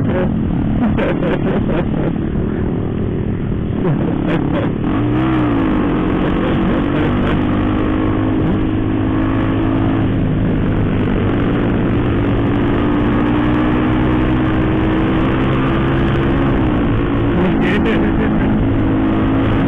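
Sport motorcycle engine running at cruising speed, with wind rushing on the helmet camera's microphone. The engine note swings briefly about five seconds in, holds steady, then drops a little near the end.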